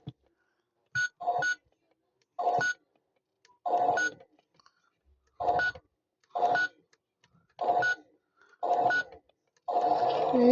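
Electronic beeps from a toy washing machine: about eight short beeps, roughly one a second, each a mix of steady tones. Near the end a longer sound begins.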